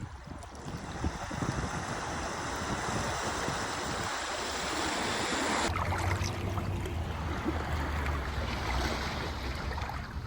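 Sea waves washing in the shallows, swelling over the first few seconds, with wind buffeting the microphone. About halfway through the sound changes abruptly and a low wind rumble takes over beneath the surf.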